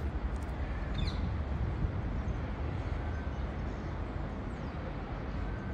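Outdoor urban ambience: a steady low rumble with a faint bird call about a second in.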